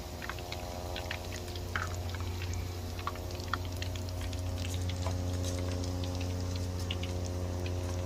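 Hot frying oil in a wok bubbling and crackling with scattered small pops as fried chicken feet and giblets are lifted out on a perforated metal ladle. A steady low hum runs underneath.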